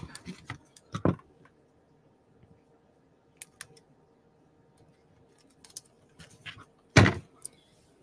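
Small clicks and ticks of paper and craft tools being handled on a tabletop, with two louder knocks: one about a second in and one near the end, as things are set down.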